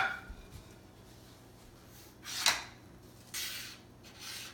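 A plate is set down on a countertop with a sharp clink that rings briefly. It is followed by a few short scuffing and rustling handling sounds as a laptop is moved on the counter.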